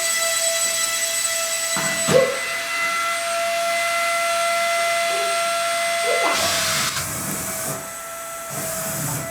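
Suction fan of a wall-climbing remote control toy car running with a steady whine and hiss, like a small vacuum cleaner, which holds the car against the wall.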